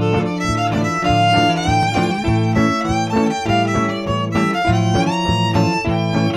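Background music: a violin melody with sliding notes over a low, evenly pulsing accompaniment.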